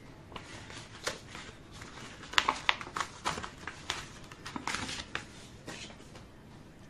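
Paper envelope being torn open by hand and a folded paper letter pulled out: irregular crackling and rustling of paper, loudest in a run of sharp crinkles a little over two seconds in.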